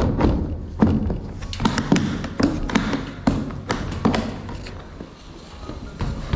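Repeated knocks, taps and thuds of a plastic pet carrier being handled and shifted on a steel exam table, with a cat in a plastic cone inside.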